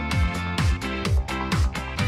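Electronic background music with a steady kick drum, about two beats a second, over a held bass line.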